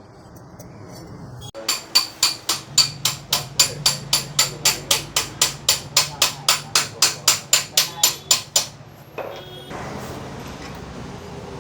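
A hammer striking metal in a fast, even series of about four blows a second for roughly seven seconds, each blow ringing briefly. A faint low hum runs underneath.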